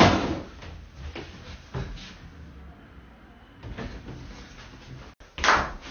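Light knocks and bumps against a wall and a free-standing mirror as a man strikes at them, with a sharp knock right at the start and a few softer ones after. A louder thump comes near the end.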